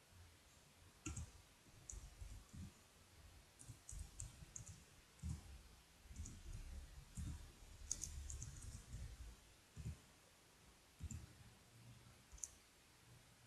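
Faint, irregular clicking of computer keyboard keys being typed on, with soft low knocks among the clicks.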